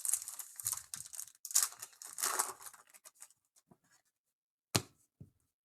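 Foil trading card pack wrapper being torn open and crinkled, a crackly rustle lasting about three seconds. A single sharp tap follows near the end.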